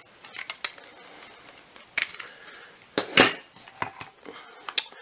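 Hard plastic parts of a Shark WandVac power nozzle clicking and knocking against each other as they are handled, with a louder clatter about three seconds in.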